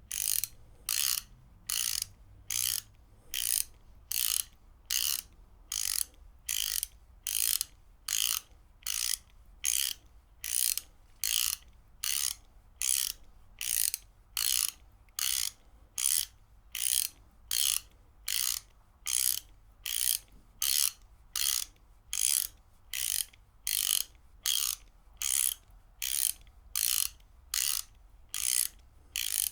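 Ratchet wrench being worked back and forth, its pawl clicking over the gear teeth in short bursts. The bursts come at a steady rhythm of about three every two seconds.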